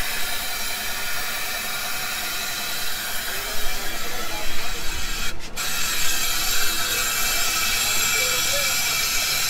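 Compressed-air blow gun hissing steadily into a TVS Ntorq 125 scooter's engine to force the old, flush-blackened engine oil out. The air cuts off for a moment about five seconds in, then resumes.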